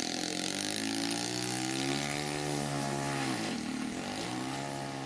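Small single-engine propeller plane flying low, its engine a steady buzz, with a brief swooping sweep through the tone about three and a half seconds in.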